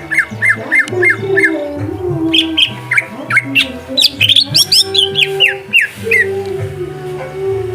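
Green leafbird (cucak hijau) singing: a run of about six quick falling chirps, then a varied phrase of rising and falling whistled notes, over background music.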